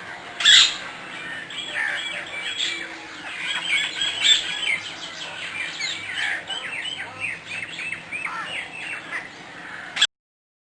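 Birds known locally as "tarida" chirping in a rapid, overlapping chatter of short, downward-sweeping notes, which cuts off suddenly near the end.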